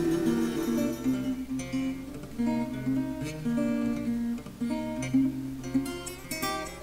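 Background music on acoustic guitar: plucked notes moving through a melody, with a few strummed chords near the end.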